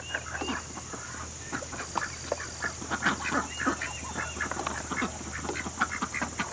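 A small flock of domestic ducks quacking and chattering, many short calls in quick succession with several birds overlapping.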